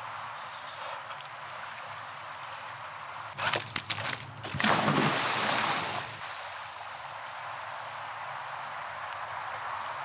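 English working cocker spaniel plunging into a brook: a quick run of splashes about three and a half seconds in, then a loud splash lasting more than a second as it lands in the water. The stream runs steadily underneath.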